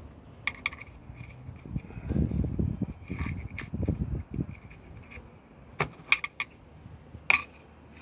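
Metal tool clicking and scraping against the emergency lock lever inside the hole in a VW Golf's door edge, turning the lock by hand. It makes a few sharp metallic clicks, three close together near the end and the loudest just after, with low muffled rumbles in the middle.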